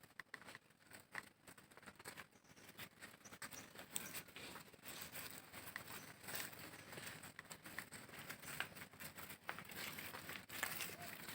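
Cattle grazing in grass: faint, irregular tearing and rustling of grass, getting a little louder after the first few seconds.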